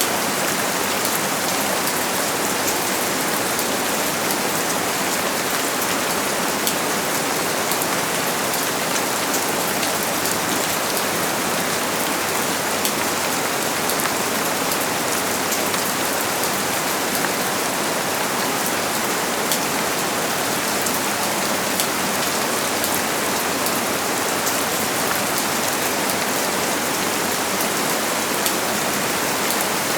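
Steady rain falling: a dense, even hiss with many small drop ticks running through it.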